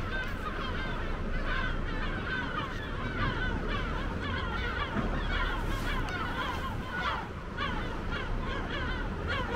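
A flock of birds calling, many short calls overlapping without a break.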